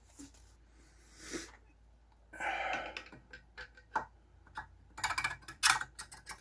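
Light metal clicks and knocks as an outboard driveshaft is worked down through the water pump housing to seat in the lower unit, with a short scraping sound about halfway and a quick run of clicks near the end.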